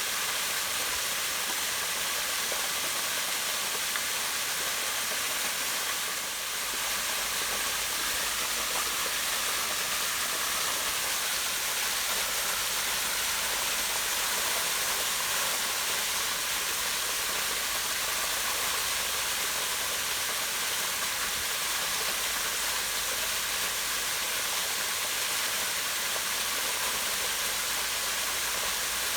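Small waterfall splashing down a rock face into a pond: a steady, even rush of falling water.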